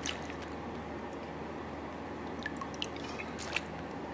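Soy sauce poured from a measuring spoon onto pineapple chunks and peppers in a plastic-lined slow cooker: faint dripping and a few light clicks over a steady low hum.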